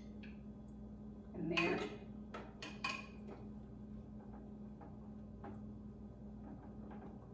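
Light clinks and taps of dishes and kitchen utensils being handled: a handful of short, separate knocks over a faint steady hum. A brief voice sound comes about a second and a half in.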